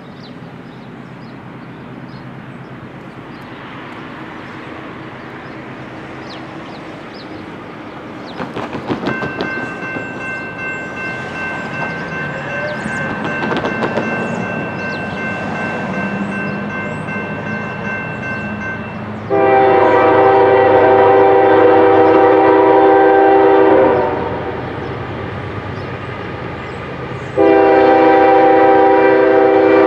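An approaching GE ES40DC diesel locomotive, its rumble slowly growing louder, sounds its air horn in two long blasts: the first about twenty seconds in, lasting some four seconds, the second starting near the end and still sounding.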